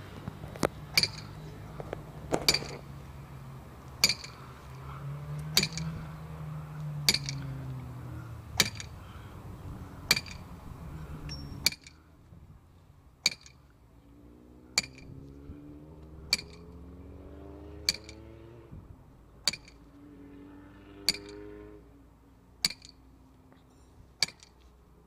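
A 16-pound sledgehammer striking the head of a steel stake squarely, a sharp metallic clink with a brief ring, repeated about once every one and a half seconds as the stake is driven into the ground.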